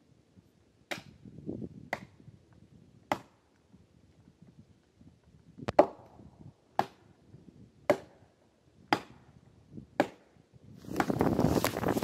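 A felling wedge being hammered into the back cut of a large tree: eight sharp strikes about one a second. A louder rushing noise comes in near the end.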